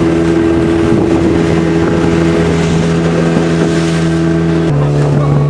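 Motorboat engine running steadily under way, a constant drone with wind and water rushing over it. The engine note shifts abruptly to a different pitch near the end.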